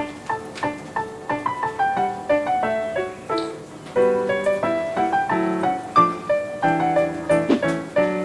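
Background music: a piano playing a quick, light melody of short notes, with fuller chords coming in about halfway through.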